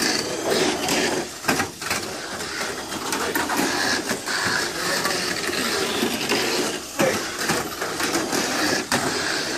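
Tamiya Mini 4WD cars running laps on a plastic lane track: a steady whir of their small electric motors with constant clicking and clattering as the cars run along the track sections and walls.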